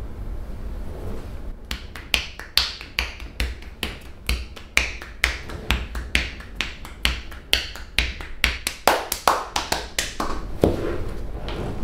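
Percussive hand massage: hands striking the body in quick, rhythmic slaps and claps, about three or four a second, starting about two seconds in and stopping shortly before the end.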